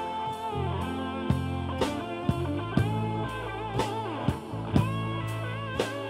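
Rock band playing: electric guitar with bending notes over sustained bass, and a steady drum beat of about two hits a second.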